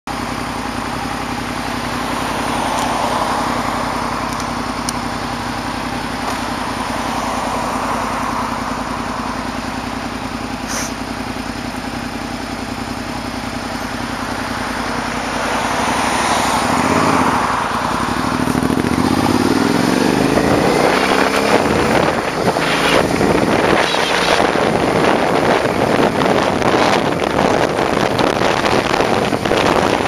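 Sport motorcycle engine idling steadily, then pulling away about 17 seconds in, its pitch rising as it accelerates. Wind noise on the helmet-mounted microphone builds as the bike gathers speed.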